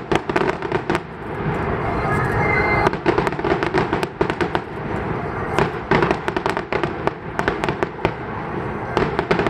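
Aerial firework shells bursting. Clusters of sharp crackling pops come about a second in, again from about three to four and a half seconds, around six seconds, and near the end.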